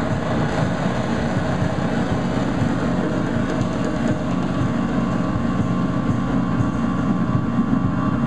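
Live electronic noise-drone music from effects pedals and electronics through a PA: a dense, steady, rumbling wall of noise, with a thin steady tone joining about halfway through.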